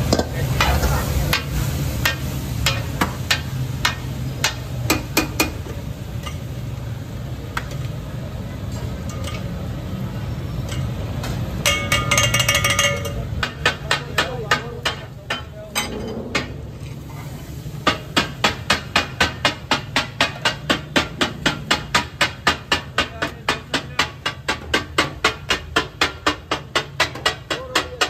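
Metal spatulas clanging on a large flat iron tawa as fish katakat is chopped and tossed. The strikes are irregular at first, then settle into a fast, even rhythm of about three a second.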